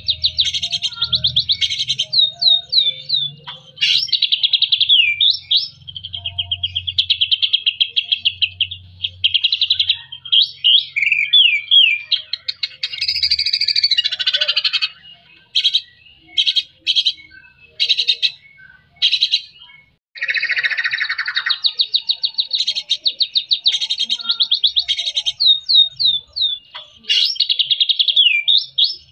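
White-rumped shama (murai batu) singing continuously: fast rattling trills broken by short downward-slurred whistles, with two harsher, rasping phrases near the middle.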